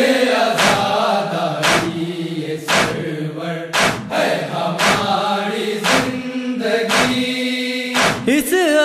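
Urdu noha recitation: male chanting in long held lines, with a sharp matam chest-beating slap about once a second keeping the beat.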